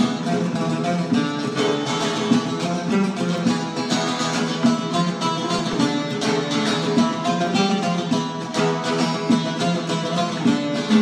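Music played on a plucked string instrument, guitar-like, with a steady run of picked and strummed notes.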